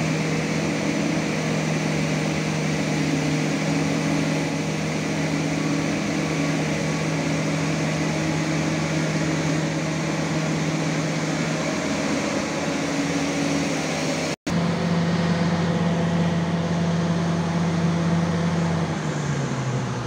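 Hitachi EX1200 hydraulic excavator running steadily under load, with its diesel engine and hydraulics working through a running test after the arm cylinder's seal kit was replaced. The sound breaks off for an instant about fourteen seconds in, then carries on, and the engine note drops lower near the end.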